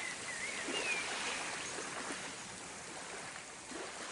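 Rushing water with a steady hiss, with a few short whistling chirps in the first second, slowly getting quieter.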